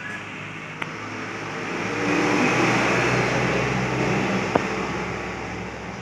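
A motor vehicle passing by: engine and road noise swell over a couple of seconds, hold, then fade away, over a low steady hum. A short sharp tick near the start and another about four and a half seconds in.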